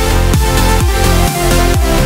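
Electronic dance music with a steady kick drum, about two beats a second, under sustained synth chords.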